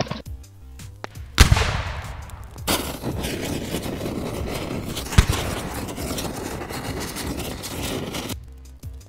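Sound effects over background music: a sudden explosion about a second and a half in, then a dense crackling burning-fire effect with a second sharp blast partway through, cutting off shortly before the end.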